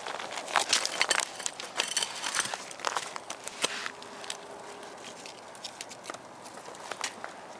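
Sticks burning in a homemade ammo-can wood stove, crackling and popping: a thick run of sharp pops for the first few seconds, then scattered single pops.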